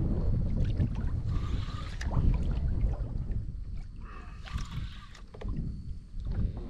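Water lapping around a kayak, with wind rumbling on the microphone, small clicks, and brief splashy noise about a second and a half in and again near five seconds.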